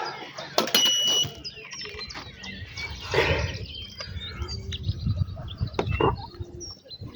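Birds chirping around a carp-fishing bank, with one short electronic beep about a second in and rustling handling noise through the middle.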